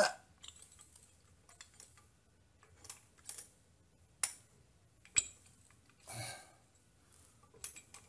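Light metal clicks and clinks of a rear brake caliper wind-back tool and its adapter being fitted against the caliper piston, with two sharper knocks about four and five seconds in.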